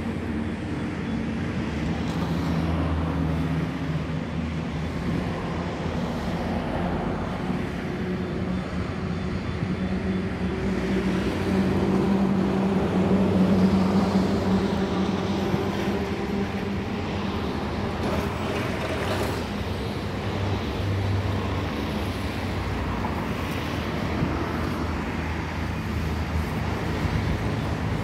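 Steady road traffic with vehicle engines running, one engine hum swelling and fading about twelve seconds in.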